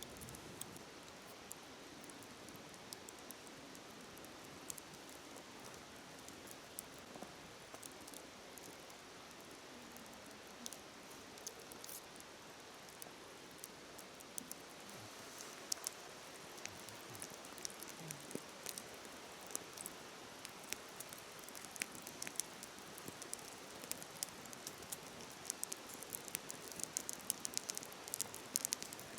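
Wood fire crackling with many short, sharp pops, which come thicker toward the end, over the steady hiss of a flowing river.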